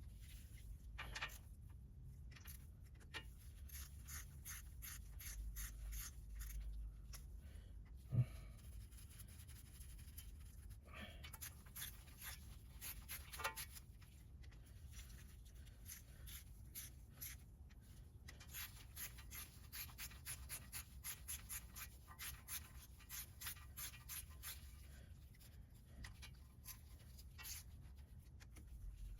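Hand ratchet clicking in quick runs as the valve body bolts are run down into the transmission, with a few faint knocks between.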